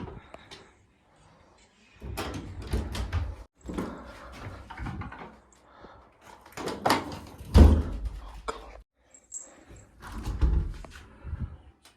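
A door being opened and let swing shut under its overhead door closer, with knocks and rattles of the door. It closes with a loud thud about seven and a half seconds in.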